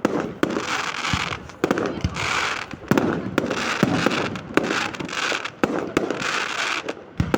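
Fireworks display: aerial shells bursting one after another, roughly one or two sharp bangs a second, each followed by crackling.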